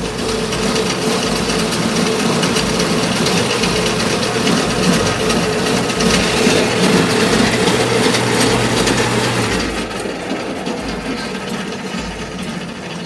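Zipline trolley pulley rolling fast along a steel cable, a loud steady rumble with rushing air and a low hum that stops about nine and a half seconds in, after which the rumble eases off.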